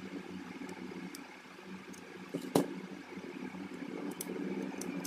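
Small clicks and taps of a hand tool working on an opened smartphone's circuit board and display flex connector, with one sharp click about two and a half seconds in, over a steady low hum.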